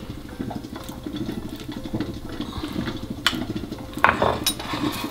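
Metal spoon scraping and smoothing soft pâté in a ceramic dish, with a few sharp clinks of the spoon against the dish in the last two seconds.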